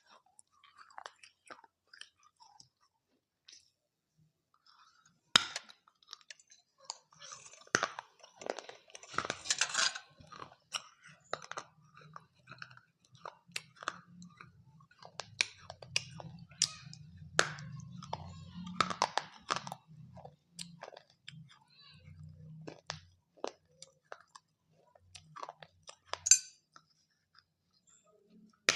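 Close-up chewing of dahi papdi chaat: crisp fried papdi wafers crunching between the teeth with wet, yogurt-soft chewing, in irregular short crunches that come thickest in two spells in the middle.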